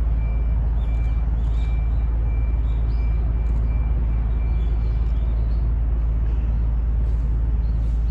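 A steady deep background rumble, with a high electronic beep repeating about twice a second that stops about five seconds in.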